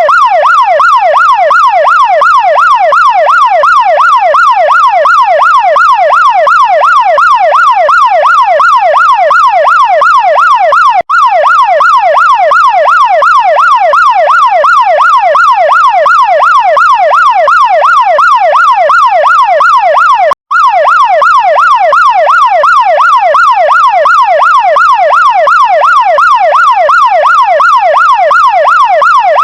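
Chinese fire truck siren wailing loudly in fast, even up-and-down pitch sweeps that repeat without pause. It cuts out for a split second twice.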